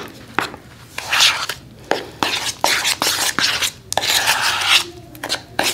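A spoon stirring a thick sour cream dip in a bowl, with wet scraping and small clicks against the bowl in quick, irregular strokes.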